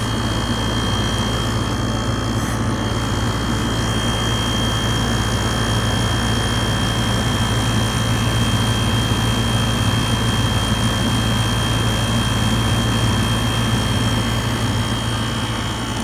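1988 Emerson Quiet Kool 7600 BTU window air conditioner running steadily: a low compressor hum under the even whoosh of its fan, with a thin high steady tone above. The unit has sat unused for years and is being run for a while to build up head pressure.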